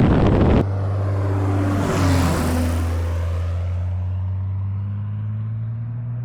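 Light airplane's piston engine droning steadily as it makes a low pass, with a hiss that swells and fades about two seconds in as it goes by closest. It opens with a loud rushing noise that cuts off abruptly about half a second in.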